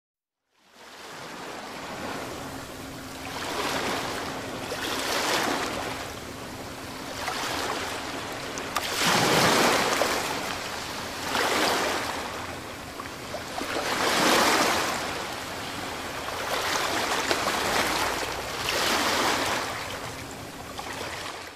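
Sea waves washing in and drawing back, the sound swelling and falling every two to three seconds.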